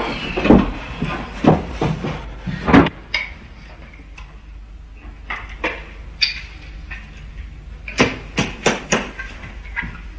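Knocks and bangs: a few loud thumps in the first three seconds, light scattered ticks, then a quick run of sharp knocks about eight seconds in.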